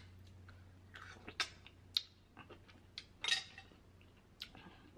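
Soft clinks of a metal spoon against clam shells and a plate, about half a dozen short clicks scattered over a few seconds, with faint sounds of chewing.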